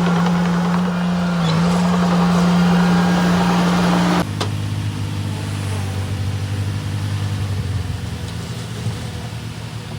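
Diesel engine of earthmoving machinery running steadily. About four seconds in, the sound changes abruptly to a lower, quieter engine drone that slowly fades.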